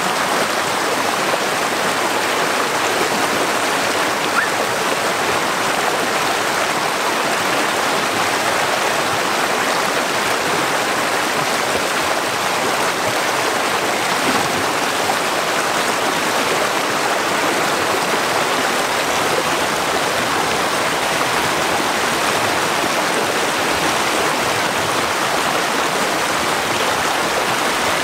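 Shallow rocky stream rushing and churning over stones: a steady, unbroken rush of water.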